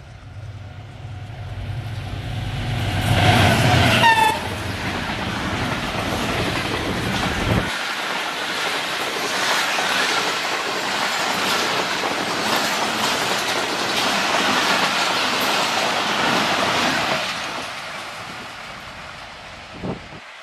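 Diesel-hauled express passenger train passing at speed. The locomotive's engine rumble builds as it approaches, and a brief horn note falls in pitch as the locomotive goes by. The coaches' wheels then clatter steadily over the rail joints and fade as the train draws away.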